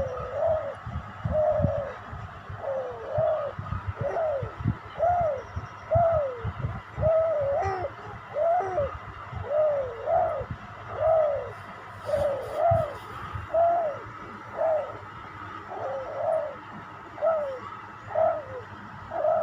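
A three-month-old baby cooing "hoo hoo" over and over: short rising-then-falling hoots, a little more than one a second. These are early infant vocal play.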